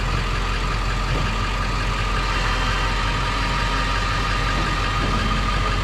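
A vehicle engine running steadily at an even speed, with a constant low rumble.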